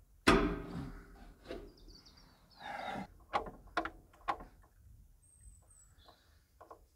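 Metal fittings and hand tools clanking as fuel lines are refitted in an excavator's engine bay: one sharp metallic clank that rings briefly near the start, then several lighter clicks and knocks. Birds chirp faintly.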